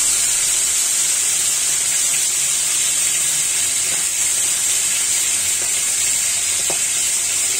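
Pieces of young carp frying in hot oil in a pan, sizzling with a steady hiss.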